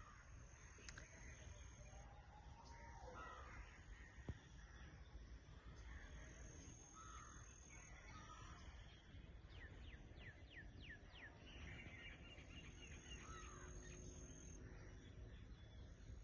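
Birds calling, faint: scattered short calls, a quick run of about eight falling chirps about two-thirds of the way in, and a thin high tone that comes and goes, over a low steady rumble.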